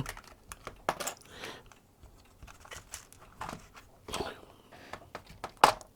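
Scattered light clicks and scuffs of hand tools being handled as a ferrule crimping tool is taken out of its kit case, with a sharper click near the end.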